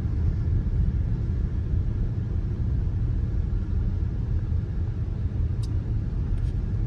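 2018 Dodge Durango driving, heard from inside the cabin: a steady low rumble of engine and tyre noise.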